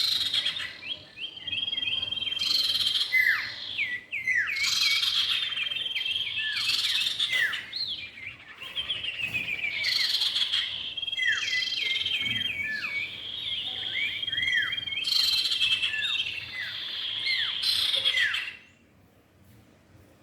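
Common iora (cipow) song: rapid repeated downslurred whistles and trilled phrases that run together, stopping abruptly about two seconds before the end.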